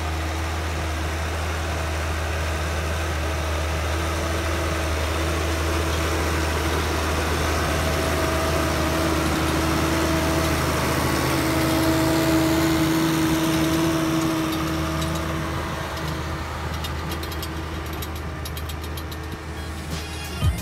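Massey Ferguson 6480 Dyna-6 tractor's diesel engine running steadily under load while it pulls a laser land leveler. It gets louder as the tractor comes close about halfway through, then fades as it moves away.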